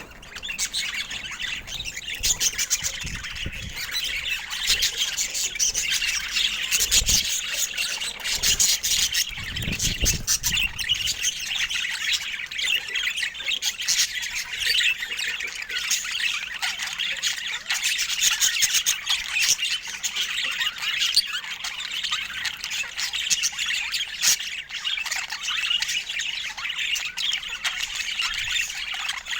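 Budgerigars chattering and squawking in a dense, continuous warble, with a couple of low bumps about seven and ten seconds in.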